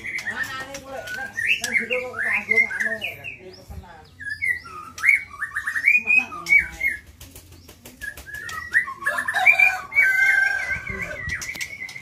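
White-rumped shama singing in a cage: a fast, varied stream of whistles and chirps sliding up and down, with scattered clicks. It quietens for a moment about seven seconds in, then goes on with longer whistled phrases.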